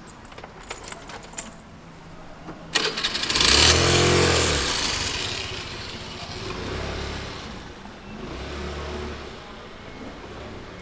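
A motor vehicle engine starts and revs as the vehicle pulls away close by. It is loud for a second or two, then fades, and two fainter swells of engine sound follow.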